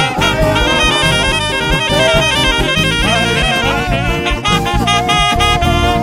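Upbeat band music with a regular drum beat and a wavering lead melody line, without singing.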